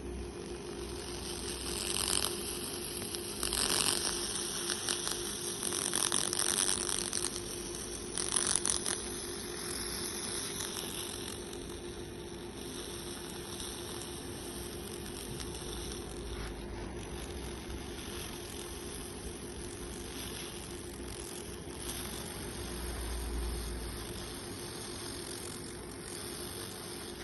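Laser cleaning head crackling as its beam ablates the surface of a wooden rudder, in uneven bursts that are loudest in the first nine seconds and lighter afterwards. A steady hum from the machine runs underneath.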